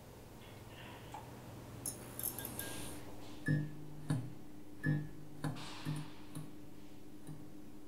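Background music: after a brief high shimmering rattle, soft low plucked notes start about three and a half seconds in and come at an even, unhurried pace.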